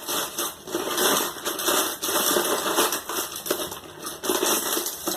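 Small plastic snap-circuit kit parts clicking and clattering in quick, irregular bursts as someone rummages through them looking for a 1-snap wire.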